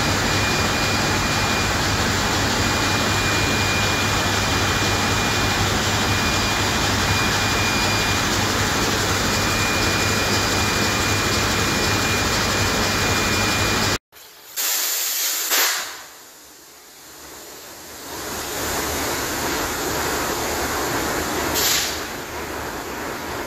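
Burmeister & Wain (MAN) slow-speed two-stroke marine diesel main engine running in its engine room: a loud, steady machinery din with a constant high whine. About two-thirds through, the sound cuts off abruptly and a short loud hiss follows. The din then dips and builds back up to steady, with another brief hiss near the end.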